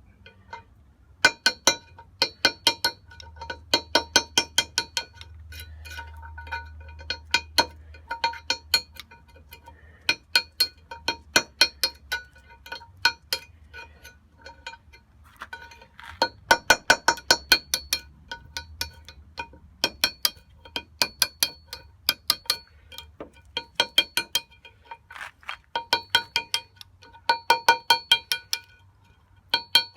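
A steel part being struck repeatedly with a hammer, in quick runs of blows with pauses between. Each blow rings with the same metallic, bell-like tones.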